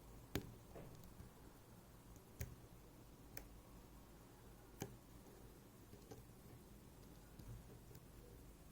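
Sharp little metal clicks from tools working a MIWA U9 lock, five or six separate ticks spaced irregularly, the loudest about half a second in, over a faint low hum.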